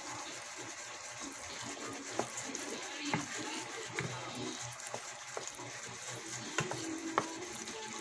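Wooden spatula stirring and tossing spaghetti in a creamy sauce in a pan: wet squelching and sloshing, with a few short knocks of the spatula against the pan.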